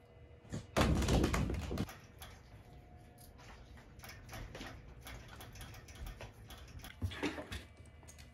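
Handling noises of floor-sheet work: a loud rough scraping burst lasting about a second, then irregular light clicks and taps, and another short scrape near the end.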